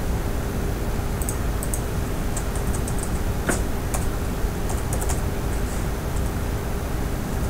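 Computer keyboard typing: irregular keystrokes in short runs of a few clicks, over a steady background hiss and faint hum.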